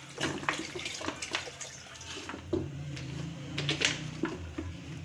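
Water poured from a plastic bottle into an aluminium pressure cooker full of soaked lentils and meat, splashing into the liquid. The pour stops about halfway through, followed by a few sharp knocks.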